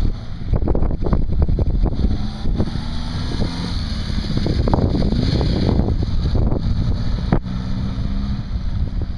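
1978 Honda CB550 K3's air-cooled inline-four engine running as the motorcycle rides slowly past, its note rising and falling around the middle. Wind buffets the microphone throughout.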